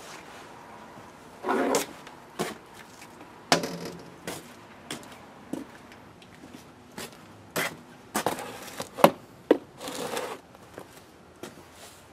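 Parts and hardware being handled while the lights are fitted to the brace: scattered knocks, clicks and scrapes, the sharpest about nine seconds in. There are short rustles about a second and a half in and again near ten seconds.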